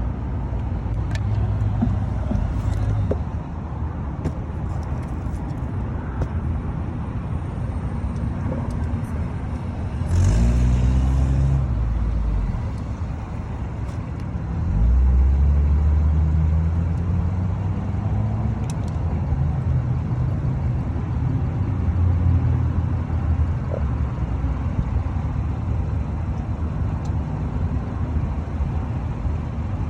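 Road traffic going by: a steady rumble of cars, with louder vehicles passing about ten and fifteen seconds in.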